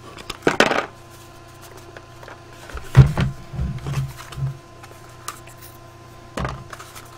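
Cardboard packaging and small accessories being handled. There is a short rustle just under a second in, a run of dull knocks about three seconds in that are the loudest sounds, and one more knock near the end.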